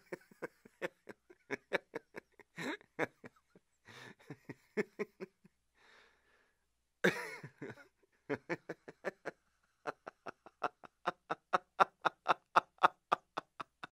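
Dogs barking in quick, repeated short barks while they attack a baboon, pausing briefly near the middle and then coming faster and louder toward the end.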